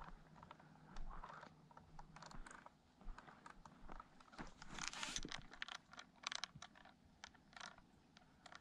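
Faint footsteps crunching on dry, gravelly dirt: a string of short, irregular crunches and scuffs.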